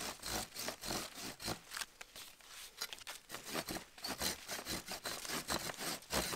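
Folding pruning saw with a curved toothed blade cutting through a young peach tree's trunk in quick back-and-forth strokes, getting louder in the second half.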